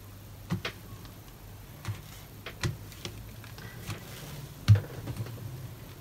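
A wadded cloth rubbing across a cold wax painting on a board, with a few soft knocks, the loudest about three quarters of the way through, over a low steady hum.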